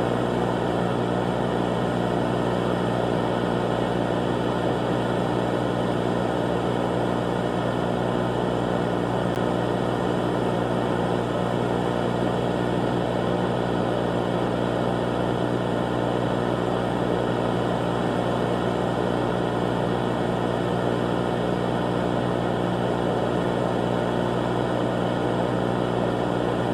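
A steady, unchanging low drone with many overtones and a noisy hiss over it, holding one level throughout.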